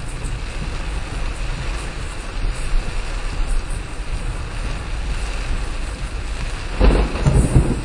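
Heavy rain on a moving car with road and wind noise, heard from inside the cabin through a dashcam microphone: a steady rushing hiss, with a louder low rumble for about a second near the end.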